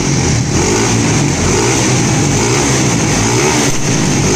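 Honda CG motorcycle with a 230 cc single-cylinder OHC engine (CRF 230 type, 66 × 66 mm) running loud, its revs rising and falling with throttle blips.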